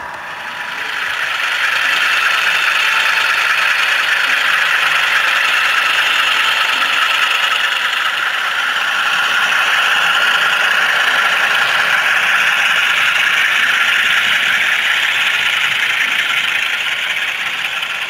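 HO-scale model train running past close by, a steady mechanical running noise that builds over the first two seconds and eases off near the end.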